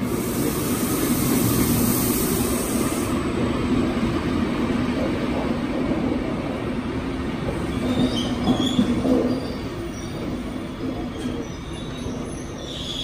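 SBB electric locomotive and its passenger coaches pulling into an underground platform: a steady, echoing rumble of wheels on rail, with a high hiss over the first three seconds. Short high squeals come about eight seconds in and again near the end as the train slows.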